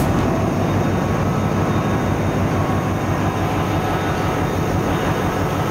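Steady, loud drone of a ship's engine room with its diesel machinery running: an even, dense rumble with no breaks or changes.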